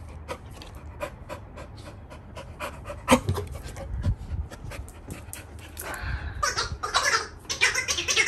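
Labrador puppy panting rapidly in short quick breaths, heavier and louder in the last couple of seconds, with one sharp bump about three seconds in.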